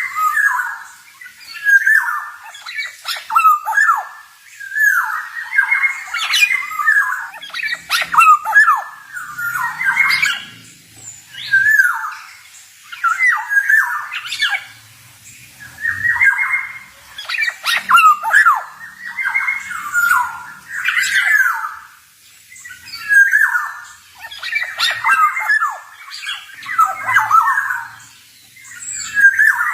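Male black-naped oriole (kepodang) singing: short phrases of rapid, sliding notes, one every two seconds or so, with brief pauses between.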